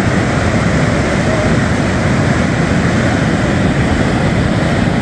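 Loud, steady rush of wind on the microphone mixed with the wash of breaking surf.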